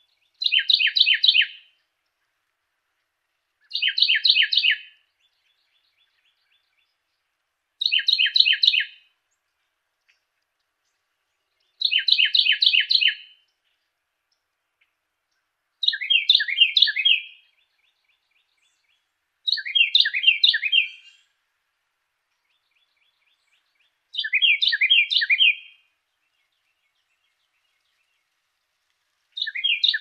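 Carolina wren singing: bursts of quickly repeated phrases, one about every four seconds with silence between. About halfway through the phrase changes to a different pattern.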